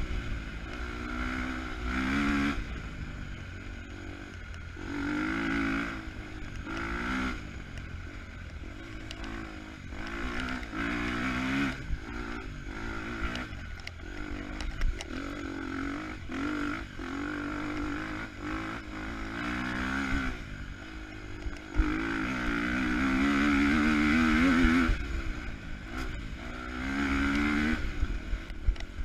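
KTM 250 EXC-F single-cylinder four-stroke dirt-bike engine revving up and down over and over as the throttle is opened and shut, with a steady low rumble of wind and terrain beneath. The longest and loudest pull comes a little past two-thirds of the way through.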